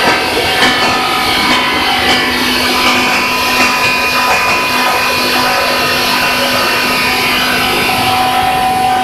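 QY-100 copper wire granulator line running: a steady, loud machine drone with several held tones over a hiss, and scattered sharp ticks.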